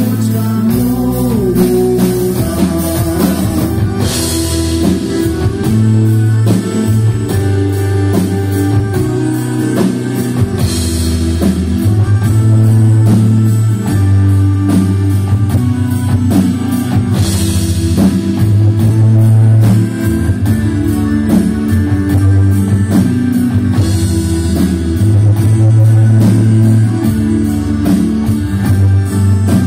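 Live band playing a folk-pop song: accordion, electric guitar and bass over a steady drum-kit beat, with a cymbal wash about every six to seven seconds.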